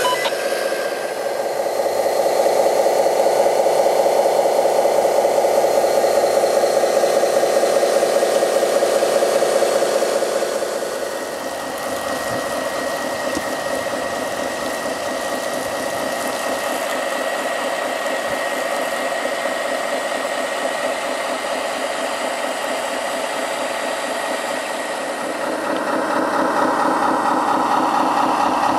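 Water pump motors of model fire engines running, a steady whirring hum. It drops in level and pitch about 11 seconds in and grows louder again near the end.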